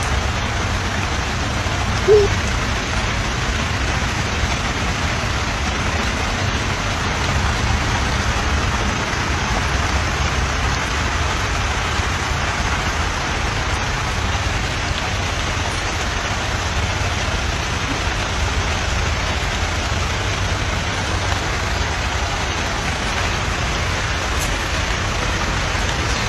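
Steady rain hiss, even and unbroken, with a low rumble under it. A brief squeak comes about two seconds in.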